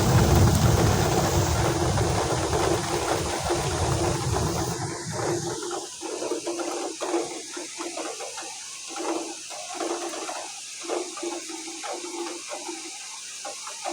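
Heavy rain pouring, with a loud low rumble for the first five seconds or so that then cuts out. After that the rain is quieter, with uneven spattering and dripping.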